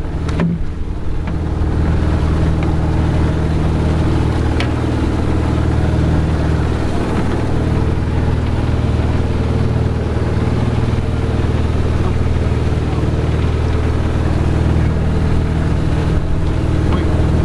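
An engine idling steadily, a deep even hum, with a few faint clicks over it.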